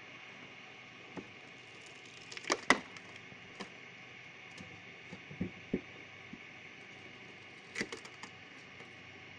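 Wood cracking and splintering in sharp snaps as a log is split by a hydraulic cone splitter. The loudest pair of cracks comes about two and a half seconds in, with more about halfway through and near the end, over a steady hiss.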